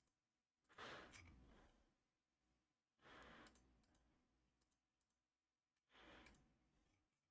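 Near silence, with three faint breaths at a close microphone, about every two and a half seconds.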